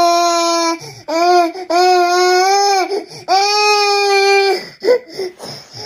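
A hungry toddler crying loudly while waiting for milk. The wails are long and held steady, broken by quick catches of breath, and near the end they turn into short, broken sobs.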